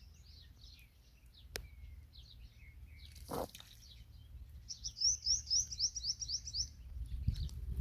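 Small birds chirping, with a loud, fast run of about a dozen high, repeated notes from about five to seven seconds in. A sharp click and a dull thud come earlier.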